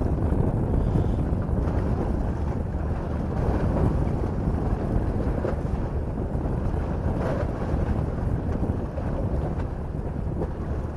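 Wind buffeting the microphone in a steady low rumble, over the wash of sea waves against rocks.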